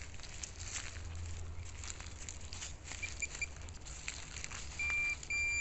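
Footsteps crunching through dry leaf litter and undergrowth. An electronic device gives a few short beeps about three seconds in, then two longer beeps near the end.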